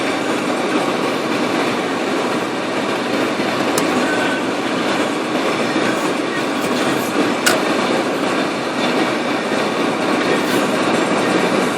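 Steady road and tyre noise inside a 1998 Dodge Durango driving in four-wheel drive on a snow-covered road, with a couple of sharp clicks about four and seven seconds in.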